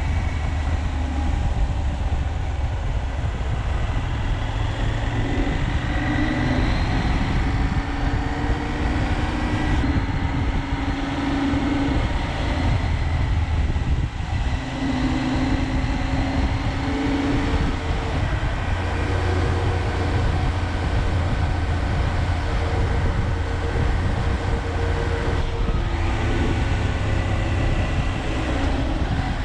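KTM 790 Adventure's parallel-twin engine running under way, its pitch shifting every few seconds as the rider works the throttle and gears, over a steady low rumble.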